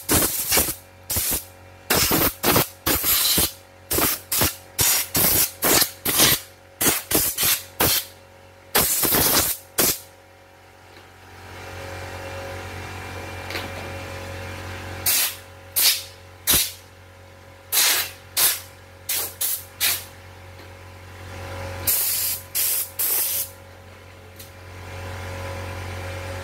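Compressed-air blow gun firing short, loud blasts to blow dirt out of an opened embroidery machine's mechanism. There is a quick run of about a dozen blasts, a pause of a few seconds, then another run. A steady low hum runs underneath.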